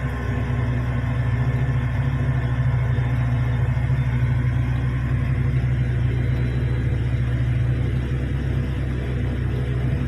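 Heavy diesel engines of large mining machinery running with a steady low drone, with no distinct impacts or changes.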